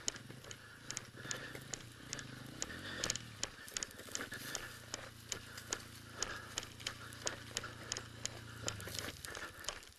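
Small dirt bike engine running faintly at idle. Its note rises and falls briefly about three seconds in, holds steady, then fades out just before the end. Frequent sharp clicks and crackles sound throughout.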